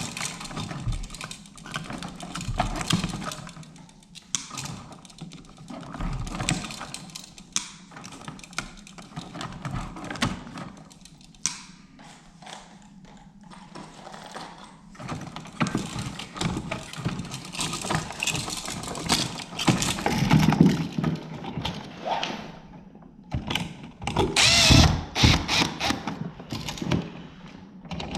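Hands working a dimmer switch and hand tools at an electrical box: a long run of irregular clicks, rattles and scrapes. It grows busier about halfway through and is loudest near the end.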